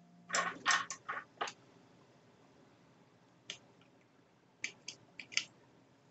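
Small clicks and scrapes of a screwdriver and fingers handling a plastic cordless-drill battery housing. There is a quick run of about five clicks in the first second and a half, a single one a little past halfway, and four more close together near the end.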